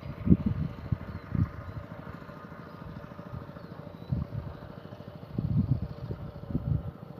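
Irregular low gusts of wind buffeting the microphone over a steady mechanical hum, like a small engine running.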